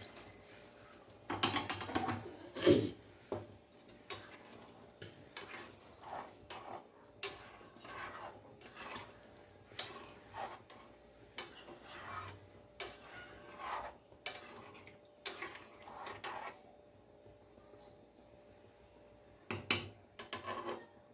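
A spoon scraping and clinking against a cooking pot as chicken curry is stirred, in irregular strokes. It falls quiet for a few seconds near the end, then there are a few more clinks.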